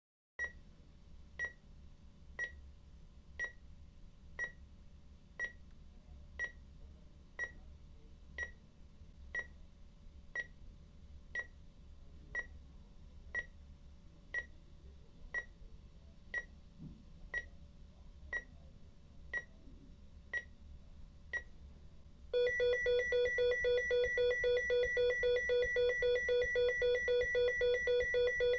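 Faint sharp ticks, evenly spaced about one a second. About 22 seconds in, a loud electronic telephone ringer starts abruptly: a steady warbling two-pitch tone pulsing several times a second.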